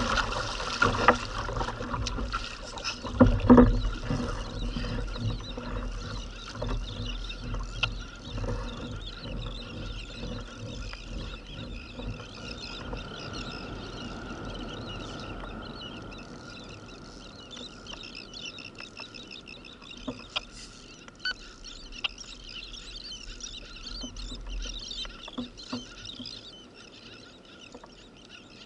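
Kayak paddle strokes splashing in the water in the first few seconds, loudest about three and a half seconds in. Then quieter water lapping and trickling around the kayak hull, with a few small clicks.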